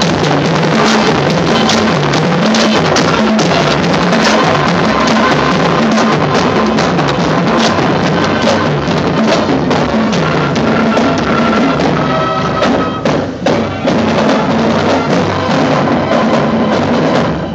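High school marching band playing as it marches, with the beat of marching snare and bass drums under brass and woodwinds.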